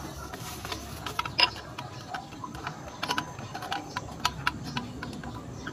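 A spoon stirring thick cocoa oatmeal in a glass bowl, clicking and tapping irregularly against the glass, several knocks a second.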